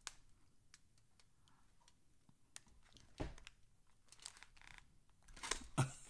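Faint scattered clicks and small handling noises in a quiet small room, with a low thump about three seconds in and a few louder knocks near the end.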